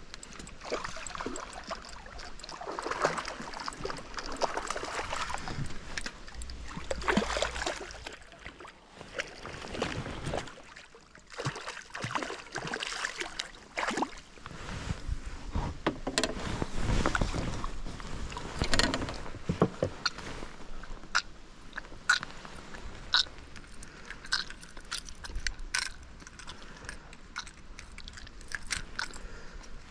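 Water sloshing and gurgling around a small boat, with irregular clicks, knocks and rustles of fishing tackle and a landed fish being handled.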